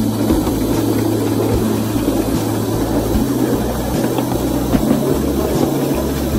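5-inch gauge live-steam tank locomotive running along the track, heard from right behind it: a steady, loud mechanical rumble of wheels on rail and the engine working.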